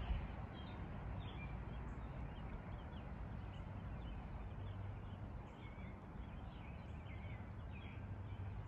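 Outdoor ambience of songbirds: many short chirps scattered over a steady low background rumble.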